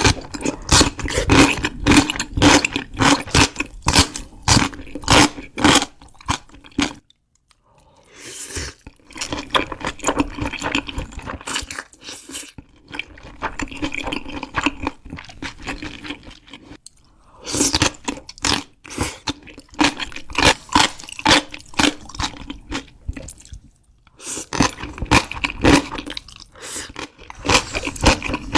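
Close-miked mouth sounds of eating: rapid crunching and chewing of food, in runs of crackling bites broken by brief pauses.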